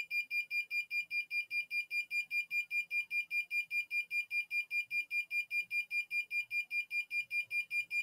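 Fire-alarm buzzer on an ESP32 breadboard circuit sounding a rapid, even series of high-pitched beeps, about six a second. It is triggered because the IR flame sensor and the MQ-2 smoke sensor are both detecting flame and smoke.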